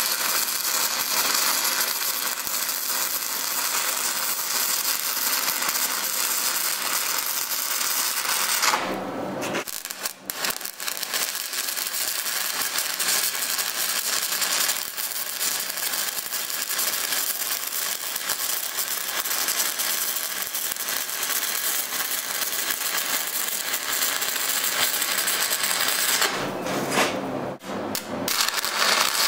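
Stick-welding (SMAW) arc burning with a steady, loud crackle and sizzle, the arc dropping out briefly twice, about a third of the way in and near the end, before it crackles on again.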